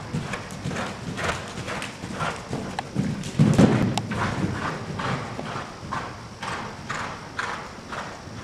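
Horse's hooves cantering on sand footing in a steady, even rhythm. A heavier thud comes about three and a half seconds in, at the jump over a fence.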